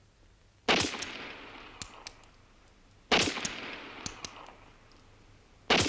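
Three sharp bangs about two and a half seconds apart, each trailing off over a couple of seconds in a crackling decay.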